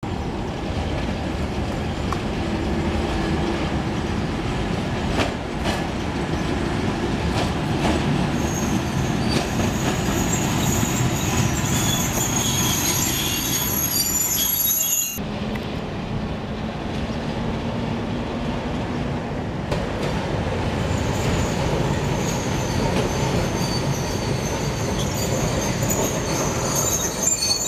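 Electric trams passing at close range: a steady rumble of steel wheels on rail with high-pitched wheel squeal. About halfway through the sound breaks off abruptly at a cut, and a second tram rolls in with its wheels squealing again.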